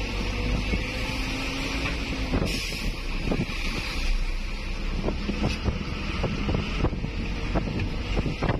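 Noise inside a vehicle's cabin while it drives slowly: a steady engine and road rumble with some wind. From about three seconds in there is a run of light knocks and rattles.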